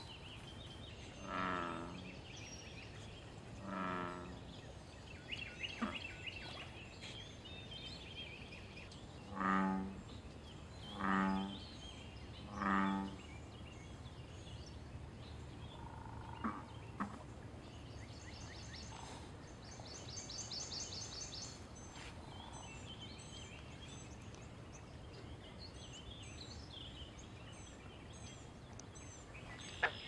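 American bullfrogs calling: five deep croaks. Two come a couple of seconds apart near the start, then a run of three about a second and a half apart near the middle. Small birds chirp and trill faintly in the background.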